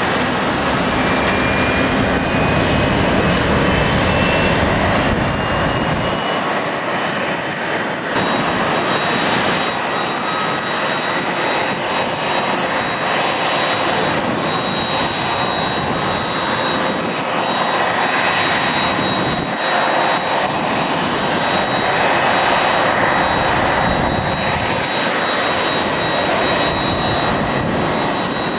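Jet airliner engines at low taxi power, heard up close as a steady loud rush; about six seconds in the deep rumble thins and a steady high whine comes in and holds, as a Jet2 Boeing 757 taxis past.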